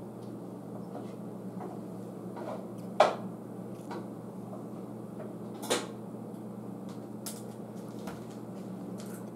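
Light kitchen handling knocks as olive oil is drizzled from a small ceramic bowl over a pizza: two sharp knocks, about three seconds in and again just before six seconds, with a few faint ticks over a steady low hum.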